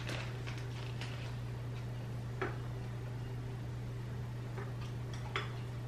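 Light rustling of a plastic bag of wax melts being handled, with a few small clicks, one about two and a half seconds in and another near the end, over a steady low hum.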